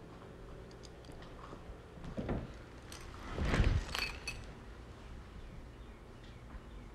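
A quiet room with faint rustling and knocks, the loudest a short burst of rustle and clicks about three and a half seconds in.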